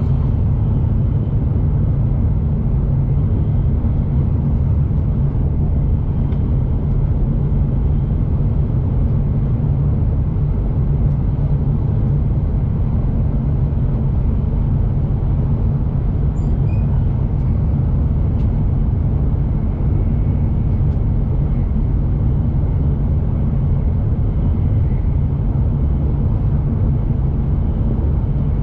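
Shinkansen bullet train running at speed, a steady deep rumble of wheels on rail and car-body noise heard from inside the carriage.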